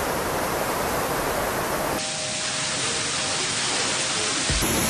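Floodwater pouring into a subway station: a steady, heavy rush of falling and cascading water. About two seconds in it changes to water gushing from the ceiling onto a train at the platform.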